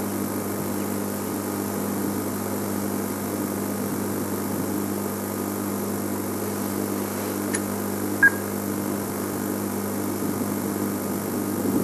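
Steady low hum of an idling safari game-drive vehicle engine. A short sharp click comes about 8 seconds in.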